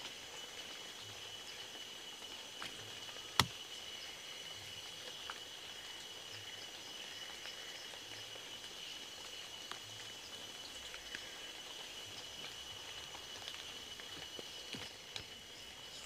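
Night outdoor ambience: a steady high insect trill over a hiss, with a single sharp click about three and a half seconds in and scattered faint ticks.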